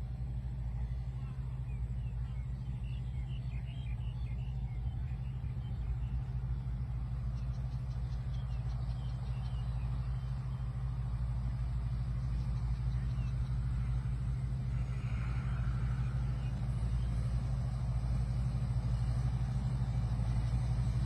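Rice combine harvester's engine running steadily with a deep drone, growing slightly louder over the stretch.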